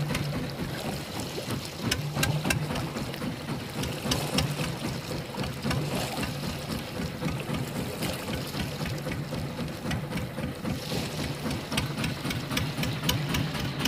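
Fishing boat's engine running steadily with a low hum, with many short, irregular clicks and knocks over it.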